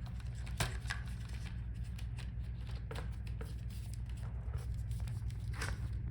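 Scattered light clicks and rustles of a replacement laptop LCD panel being handled and set into the plastic back cover, over a steady low hum.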